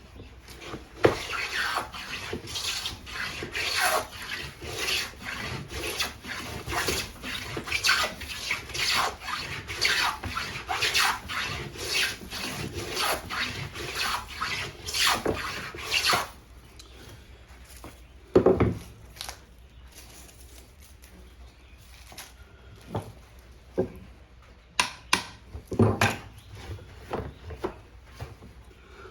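Wooden jack plane taking shavings off a board in quick repeated strokes, roughly one and a half a second, each a short rasping swish. The strokes stop about sixteen seconds in, and a few sharp knocks follow.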